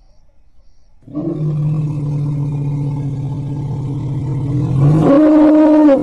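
Elephant calling: a long, steady, low-pitched call begins about a second in, then steps up in pitch and grows louder for its last second before cutting off.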